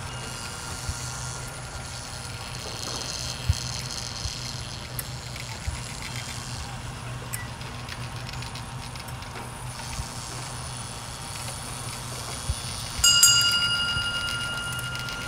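Motorised wood-and-thread kinetic sculpture running: a steady low motor hum with scattered light wooden knocks. Near the end, a single metallic ring that fades over a couple of seconds.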